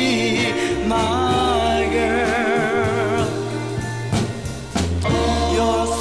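Recorded soul ballad playing: a voice holding long notes with vibrato over a bass line, with a couple of drum hits a little past four seconds in.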